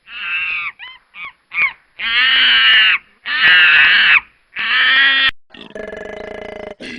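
An animal calling: a few short rising and falling cries, then three loud, harsh calls about a second each, evenly spaced. After them comes a steady buzzing sound.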